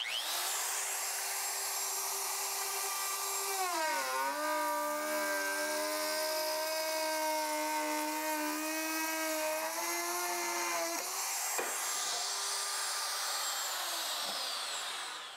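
DeWalt 2-1/4 hp plunge-base router with a flush-trim bit running at speed and cutting a circular notch in a 3/4-inch tongue-and-groove ceiling board. Its whine drops in pitch about four seconds in as the bit loads up in the cut, rises again near eleven seconds, and winds down as the router is switched off near the end.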